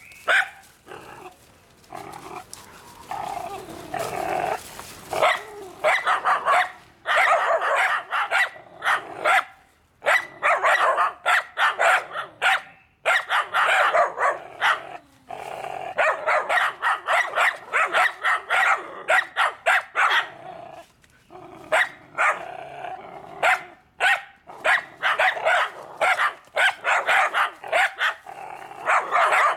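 A dog barking repeatedly and fast, several barks a second, in long runs broken by short pauses.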